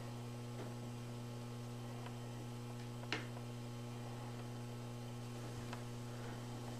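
Steady electrical mains hum with a single sharp click about three seconds in.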